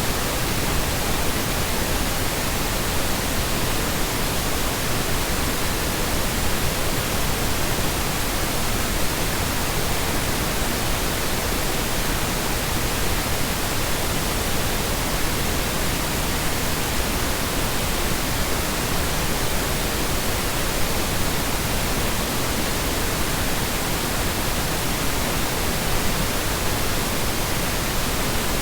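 Steady synthetically generated noise: an even, unchanging hiss with no tones, rhythm or breaks.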